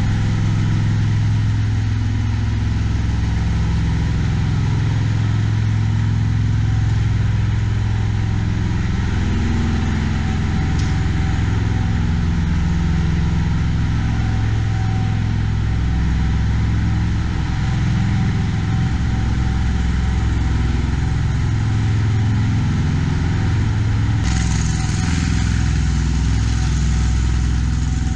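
A steady, low engine drone runs without a break, like a machine idling. Near the end the sound gets brighter, with more hiss at the top.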